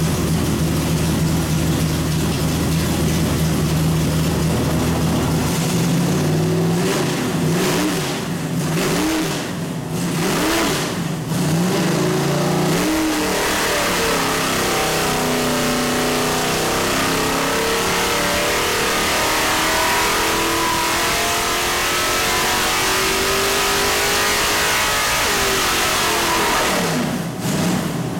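Small-block Chevrolet 427 V8 running on an engine dyno. It idles steadily, then takes several quick throttle blips from about five seconds in. From about 13 s it makes one long dyno pull, its pitch climbing steadily for about twelve seconds, then the throttle closes and it drops back toward idle near the end.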